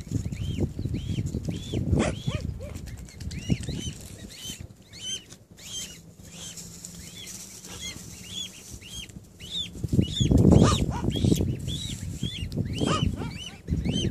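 Mute swan cygnets peeping: a steady run of short, high, arched chirps, about three a second, from several chicks at once. Stretches of low rumbling noise come and go, loudest about ten seconds in.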